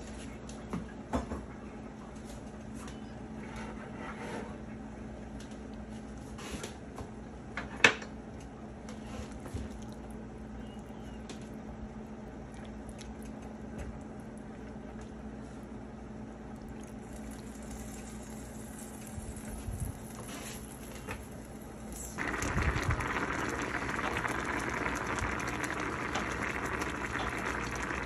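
A watery fish curry broth in a stainless-steel pan, quiet for most of the time apart from a few light clicks and one sharp knock about eight seconds in. A few seconds before the end it gives way to a louder, steady bubbling as the broth boils.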